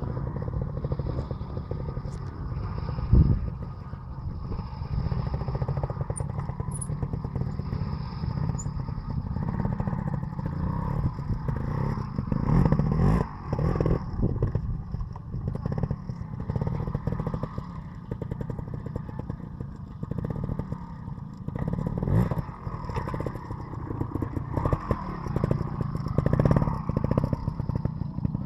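Trials motorcycle engine running at low revs, with repeated short throttle blips as the bike climbs slowly over boulders, and a sharp thump about three seconds in.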